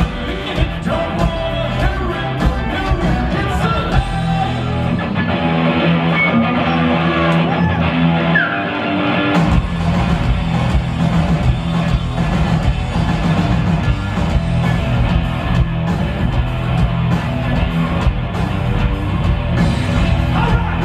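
Rock band playing live: electric guitars and drums with a male singer. About four seconds in the deep bass and kick drop away, and the full band comes back in about halfway through.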